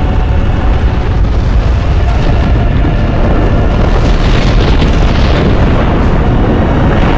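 Film sound effects of an eruption and explosions: a loud, continuous deep rumble.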